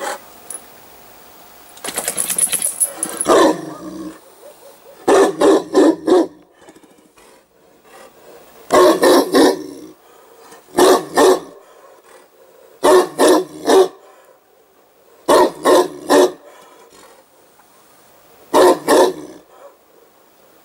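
Newfoundland dog barking in short volleys of two or three barks, repeated about every two to three seconds, at a hedgehog it has found.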